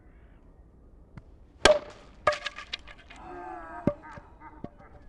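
Cricket ball striking a repaired, previously split English willow bat: one sharp, ringing crack about a second and a half in. A quick rattle of smaller knocks follows, then two more sharp knocks.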